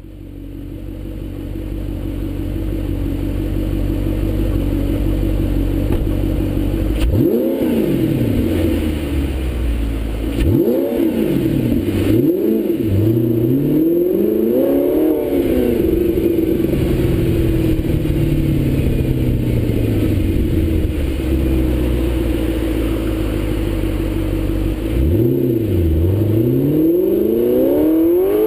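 Audi R8 engine through a Kreissieg aftermarket exhaust while driving: a steady low note at first, then several quick revs that rise and fall in pitch, a steadier cruising stretch, and the engine climbing again near the end.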